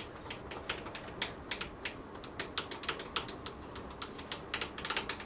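Sieg C6 mini lathe's cross-slide handwheel being wound by hand, driving the cross slide back along its lead screw: a rapid, uneven run of light metallic clicks. The slide is near the end of its extended travel, where it gets a little firm.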